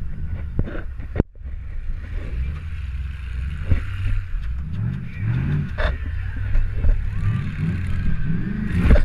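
Demolition derby car's engine running and revving up and down, heard from the driver's seat, with several sharp bangs and clatter of metal impacts, the loudest about a second in.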